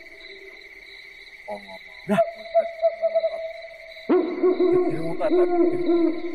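An owl hooting in a repeated series, growing louder about four seconds in. There is a sharp knock about two seconds in.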